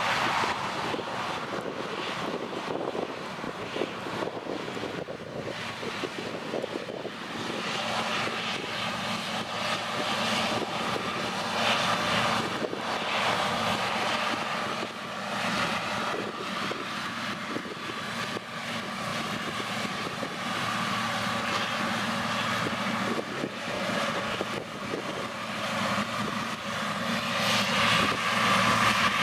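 An engine drone at a steady pitch over a rushing hiss, getting louder toward the end.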